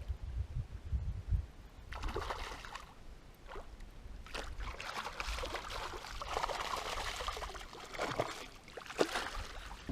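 Water splashing and trickling with scattered sharp knocks as a hooked smallmouth bass is brought to the boat and landed. A low rumble at the start gives way to the splashing, which is busiest in the second half.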